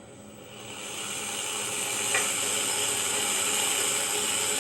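A pet snake hissing: one long steady hiss that swells in about a second in and holds, the hiss of an irritated snake.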